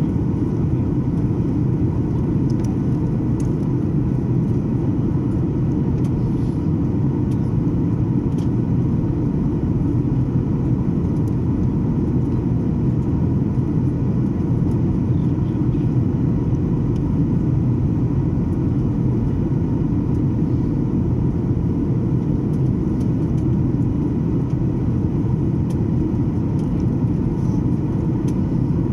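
Steady cabin noise of a Boeing 737 airliner in flight: an even, low roar of engines and airflow with a faint steady hum above it.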